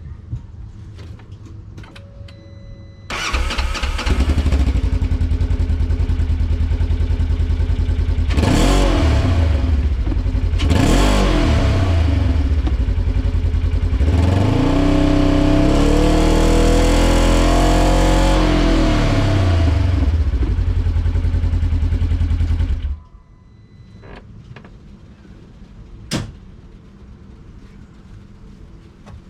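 2015 Polaris RZR 900's engine through its stock exhaust: it starts about three seconds in, idles, takes two quick revs, then a longer rev that climbs and falls back over several seconds, and is shut off a few seconds before the end. A single sharp click follows a few seconds after shutdown.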